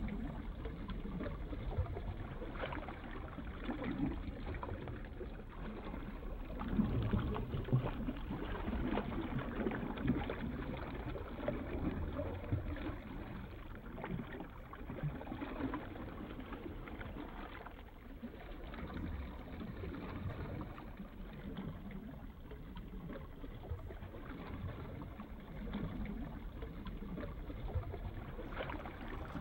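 Moving water: an irregular, continuous sloshing wash of sound, heaviest in the low range.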